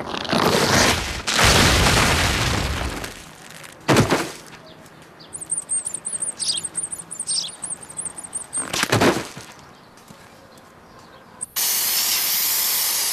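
Cartoon sound effects. There are noisy swishes at the start, then a sharp crack about four seconds in, a warbling high chirp, and another swish. Near the end an aerosol spray can hisses steadily.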